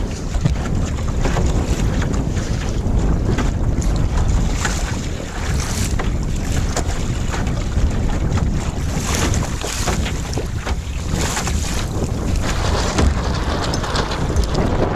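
Strong wind buffeting a smartphone microphone fixed to a small sailing dinghy's gunwale, with water rushing and splashing against the hull as the boat sails, and many brief splashes throughout.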